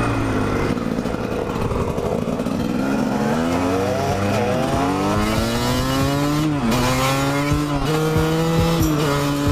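Two-stroke dirt bike engines accelerating up through the gears, the pitch climbing and dropping back at each of several shifts, with wind noise on the microphone.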